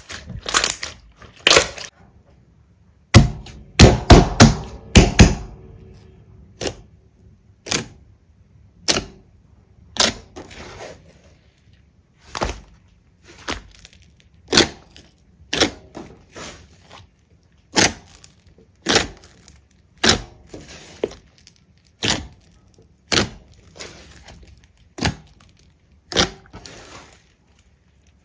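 Slime being pressed and poked by hand, giving sharp pops and crackles at about one a second, with a denser run of louder crunching pops about three to five seconds in.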